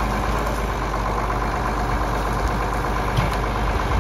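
John Deere tractor's diesel engine running steadily as the front loader works into brush.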